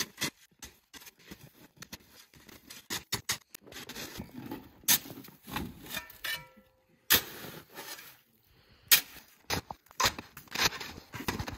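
Irregular scraping and sharp knocks as hard-packed, refrozen snow is chipped and broken up, with a short break a little past halfway.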